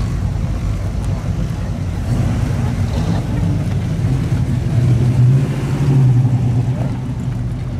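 1965 Pontiac GTO's 389 V8 running at low speed as the car creeps past, a steady low exhaust rumble that gets louder about five seconds in as the car goes by.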